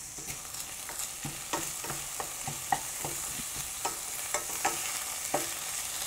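Food sizzling in oil in a stainless steel sauté pan while a wooden spatula stirs it, with irregular light knocks and scrapes of the spatula against the pan.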